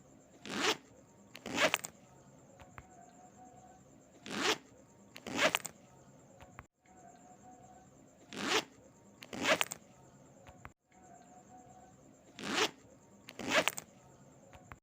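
A zipper pulled in two quick zips about a second apart, the pair repeated four times at even intervals of about four seconds.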